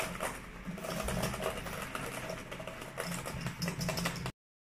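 Laptop keyboard keys pressed rapidly with the fingers of both hands: a quick, uneven stream of plastic key clicks over a low steady hum. It cuts off suddenly near the end.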